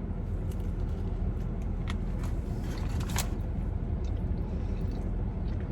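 Steady low hum of a room air conditioner running, with a few faint clicks about two and three seconds in.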